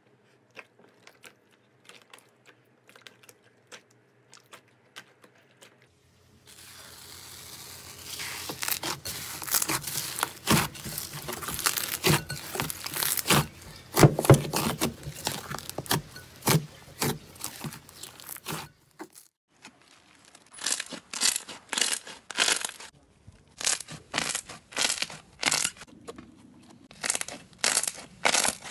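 Slime being worked by hand, with crackling and crunchy popping. There are faint scattered clicks at first, then dense continuous crackling, then a run of separate crunchy squeezes about two a second near the end.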